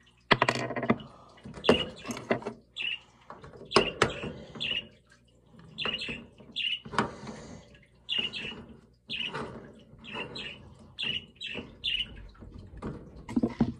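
Ducklings peeping over and over in short, high calls while they splash about in a shallow sink of water.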